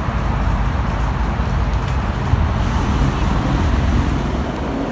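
Steady city road-traffic noise, a continuous low rumble with a wash of higher hiss.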